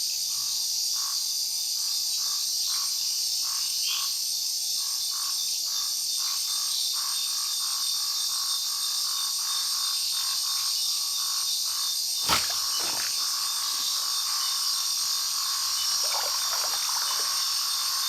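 Night chorus of frogs and insects: short frog notes repeat about twice a second over a steady high insect buzz. A single sharp knock about twelve seconds in.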